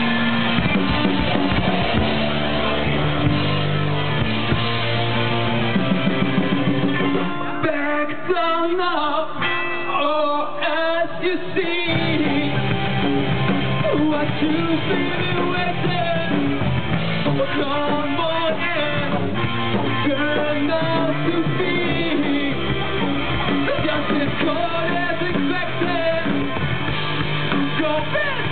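Rock band playing live: electric guitar, bass guitar and drum kit with a singer. About eight seconds in the bass and drums drop away, leaving guitar and voice, and the full band comes back in about four seconds later.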